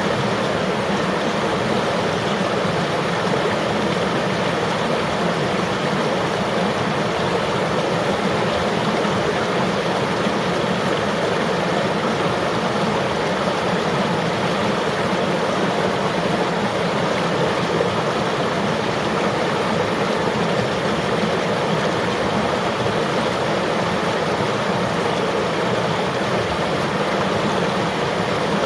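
Flowing river water, a steady, even rushing.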